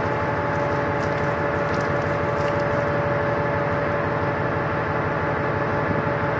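Ship's machinery running steadily: a constant drone with a steady hum.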